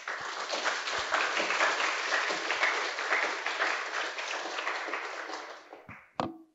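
Audience applauding; the clapping fades away about six seconds in, followed by a single sharp knock near the end.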